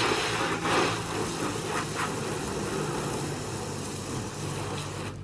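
A vehicle engine running steadily under a broad hiss. The hiss cuts off suddenly near the end while the engine carries on.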